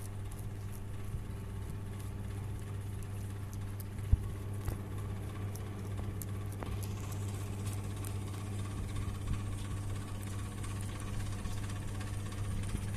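Steady low machine hum, with faint scattered clicks and one sharper click about four seconds in.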